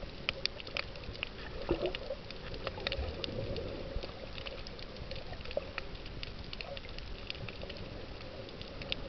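Underwater sound on a shallow reef: many scattered sharp clicks and crackles over a low, steady rush of water moving in a strong current.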